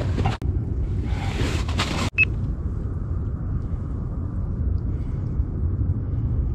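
Wind rumbling steadily on the microphone, with bursts of rustling in the first two seconds. About two seconds in the sound breaks off sharply and a short high beep follows.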